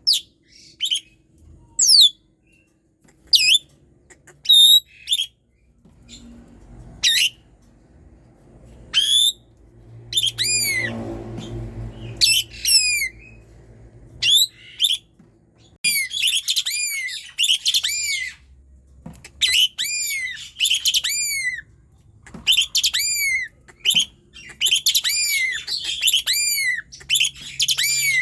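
Asian pied starling (jalak suren) singing: loud, sharp whistled notes sweeping downward in pitch, spaced out at first, then from about halfway turning into fast runs of repeated chattering notes.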